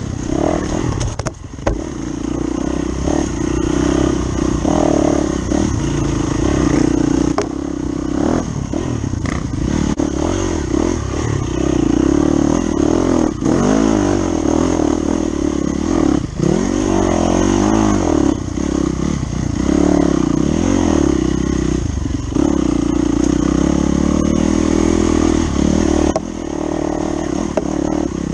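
Dirt bike engine, heard from a camera on the bike, revving up and down as it is ridden along a bumpy dirt trail, with scattered knocks and rattles from the bumps.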